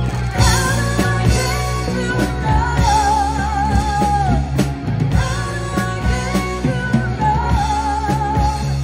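Live rock band playing: drum kit, electric bass and electric guitar under a woman singing the lead vocal, with long held notes that waver in pitch.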